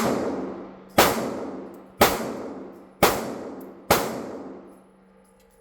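Five gunshots about a second apart at a shooting range, each sharp report followed by a long echoing decay.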